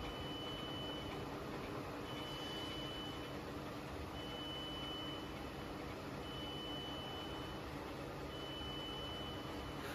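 Double-turret CNC lathe running with its spindle turning a shaft workpiece: a steady mechanical hum with a few steady low tones. Over it, a high electronic beep sounds for about a second, then stops for about a second, five times.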